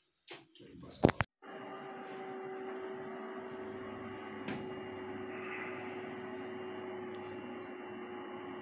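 Steady electrical hum with a few held tones from a running BTA PV 7200 solar inverter. It sets in just after two sharp clicks about a second in.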